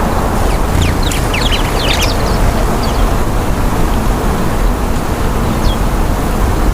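Steady low outdoor noise like road traffic throughout, with a flurry of short, high bird chirps about a second in and a single chirp near the end.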